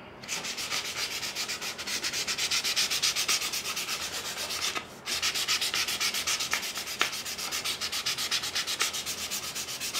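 Fine sandpaper rubbed by hand along a reed basket rim in quick back-and-forth strokes, several a second, with a brief pause about five seconds in.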